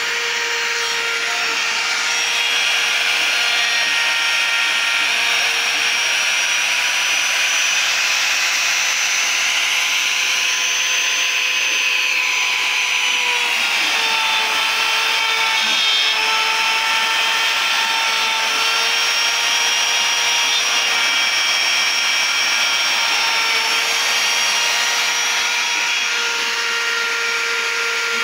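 CNC router spindle running with a steady high whine over a hiss of cutting noise. The whine drops a little in pitch about halfway through and rises back near the end.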